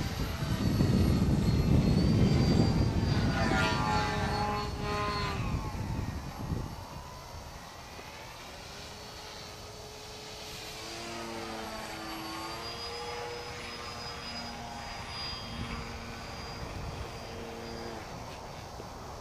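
Electric motor and propeller of a small foam 3D RC airplane whining overhead, the pitch rising and falling with throttle and as it passes. Loudest with a heavy rumble in the first five or six seconds, then a quieter whine that steps between steady pitches.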